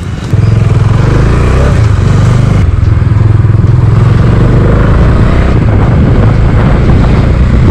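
Bajaj Dominar 400's single-cylinder engine pulling away and running under way, loud and steady from about a third of a second in.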